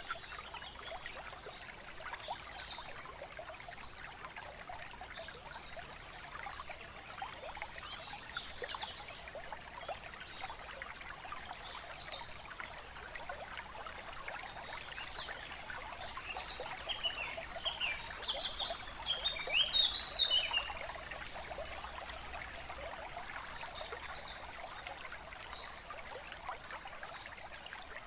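Nature ambience of a trickling stream with birds chirping, loudest in a flurry of bird calls about two-thirds of the way through.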